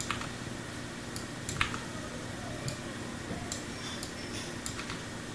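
About half a dozen scattered clicks from a computer mouse and keyboard, over a faint steady room hum.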